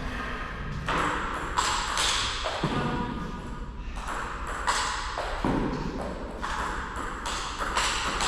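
Table tennis balls clicking as they bounce off tables, floor and paddles, irregular sharp ticks about once a second over a steady low hum.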